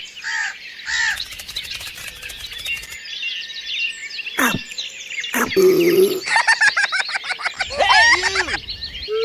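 Birds chirping and calling in a run of short clips that start and stop abruptly one after another.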